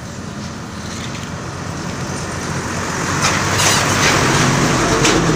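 Road traffic: a motor vehicle's engine and tyre noise, swelling louder over the second half as it draws near.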